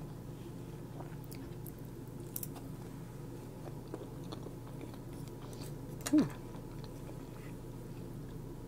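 Close-miked chewing and small wet mouth clicks of someone eating mac and cheese, over a steady low hum. About six seconds in there is a short vocal sound that falls in pitch.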